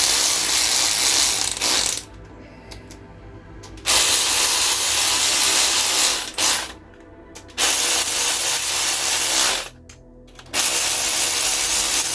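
Sealy electric ratchet running in four bursts of about two seconds each, driving down the 9/16 nuts on an engine's rocker assembly.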